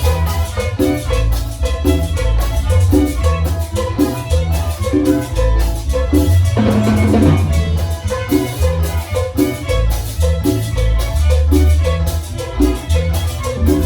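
Live band playing cumbia with violins over a steady beat and strong bass.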